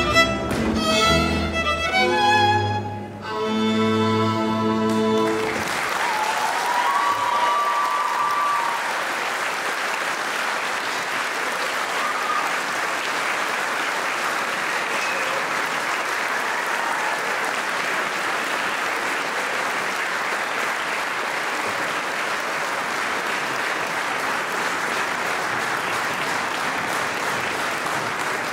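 A live Hungarian folk band with fiddles and double bass ends the dance tune on a held final chord about five seconds in, and the audience breaks into steady applause that lasts the rest of the time.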